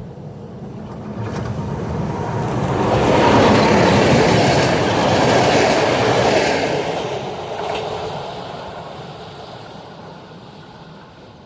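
A train passing by, its wheels clattering over the rails; the sound builds to a peak a few seconds in, then fades away.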